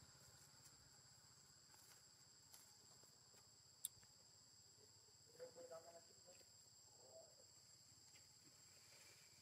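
Near silence with a faint, steady high insect drone. There is a single sharp click about four seconds in, and a few short, faint calls a little after halfway.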